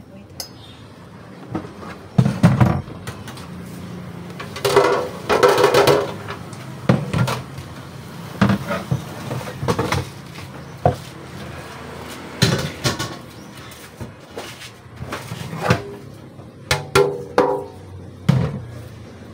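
Irregular knocks, clicks and clatter of bamboo skewers and pork pieces handled over a stainless-steel basin by plastic-gloved hands, as the meat is threaded onto sticks for barbecue. A couple of brief pitched sounds stand out, one about five seconds in and one near the end.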